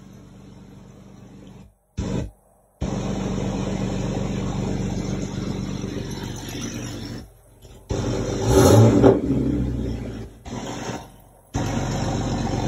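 The Jeep TJ's 4.0-litre straight-six running, heard inside the cab, on its newly fitted PCM. It comes in several short pieces that cut off abruptly, with a louder surge about nine seconds in.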